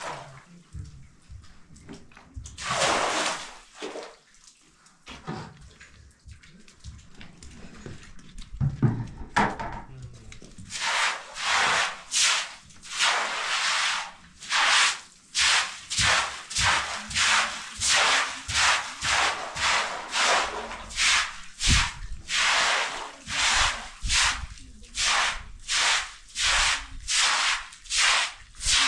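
Short straw hand broom sweeping a wet concrete floor in quick, regular strokes, about two a second, starting about ten seconds in. Before that, a single splash of water thrown from a bucket about three seconds in.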